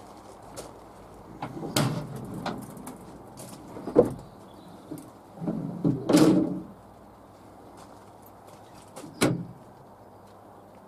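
A few separate knocks and clunks, door-like in character. The loudest is a sharp knock about four seconds in, followed by a longer rattling clunk around six seconds and another knock near nine seconds.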